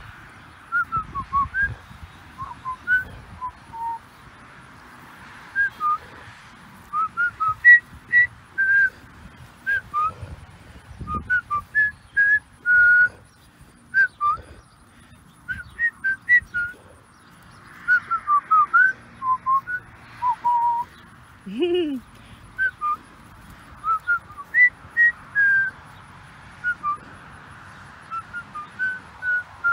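Whistling: a long string of short, high whistled notes and little glides at an uneven pace. A single lower call rises and falls about twenty-two seconds in.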